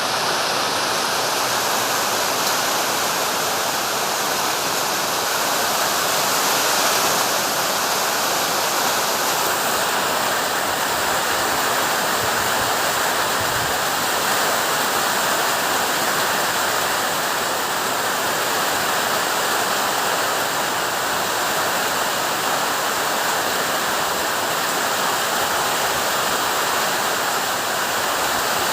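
Heavy summer downpour with strong wind: a steady, loud rushing hiss of rain with no let-up.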